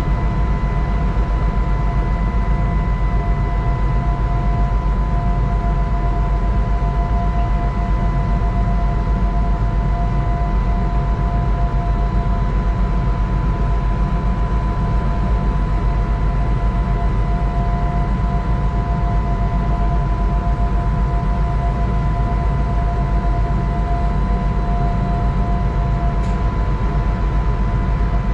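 The onboard machinery of a narrow-gauge electric train standing still, running with a steady hum and several constant whining tones.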